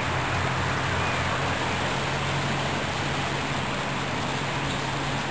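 Steady rushing outdoor background noise with a low hum underneath, with no distinct events.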